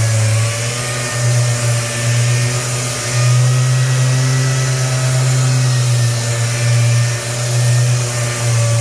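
Random orbital sander running with an 80-grit 3M Xtract mesh disc on body filler, with dust extraction: a steady low hum over a hiss, swelling and dipping slightly as the sander is pressed and moved across the surface.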